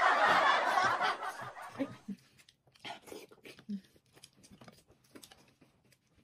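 Snickering laughter fades out over the first two seconds. Faint chewing and light clicks of chopsticks on a ceramic bowl follow.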